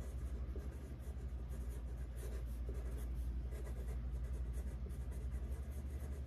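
Pencil scratching on paper as a short note is written by hand, over a steady low hum.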